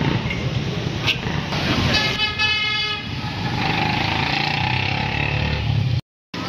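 Street traffic with a steady engine rumble and a vehicle horn honking for about a second, about two seconds in; the sound cuts out briefly near the end.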